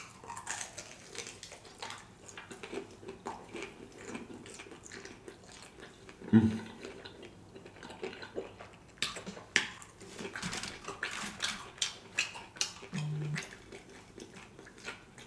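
Close-up biting and chewing of a sauce-covered fried chicken wing: irregular crunching and wet mouth clicks, with a short hummed "mm" a little after the middle.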